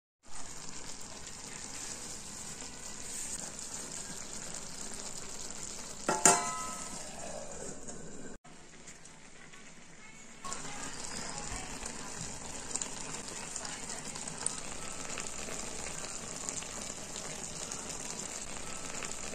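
A pot of masale bhat (spiced rice) cooking on the stove, with a steady sizzling hiss. About six seconds in there is one sharp, ringing metallic clank. The sizzle dips for a couple of seconds just past the middle, then comes back.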